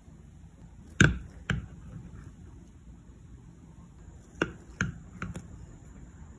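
Metal spoon clinking against the dish as it scoops into a soft no-bake chocolate cheesecake: two sharp clicks about a second in, the first the loudest, then three more quick ones past four seconds in.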